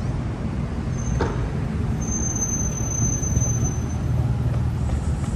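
Road traffic going by, a steady low engine rumble, with a thin high-pitched whine from about a second in that lasts nearly three seconds.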